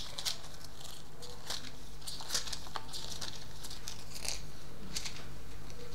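Lull with a steady low hum and faint, scattered rustles and clicks.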